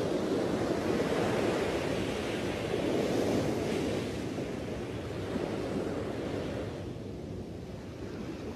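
Sea surf washing in, a steady rush that swells and eases in slow surges every few seconds.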